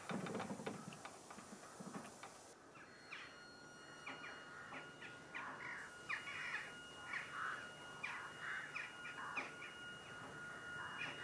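Faint outdoor birdsong, with crows cawing among many short scattered bird calls. Under it, from a few seconds in, runs a thin steady high-pitched tone.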